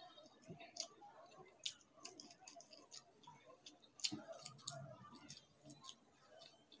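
Faint wet clicks and smacks of eating rice and chicken curry by hand: fingers mixing the rice on the plate, a mouthful taken with the loudest smack about four seconds in, and chewing.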